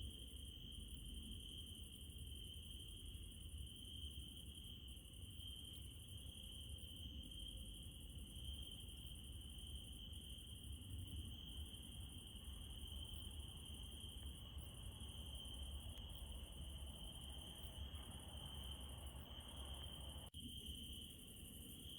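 A steady chorus of crickets trilling, with a higher insect hiss over it and a low rumble underneath. The sound drops out for an instant near the end.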